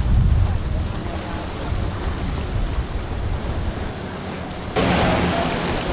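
Venetian water taxi under way: a low motorboat rumble with water rushing past and wind on the microphone, fading over the first second. About five seconds in, a louder rushing hiss cuts in suddenly.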